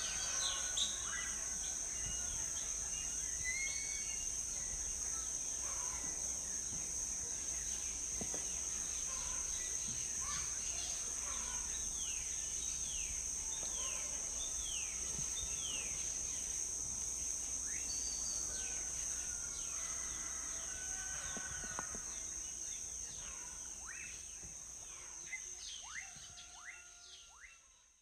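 Outdoor ambience of many birds chirping over a steady high-pitched drone and a low hum, fading out near the end.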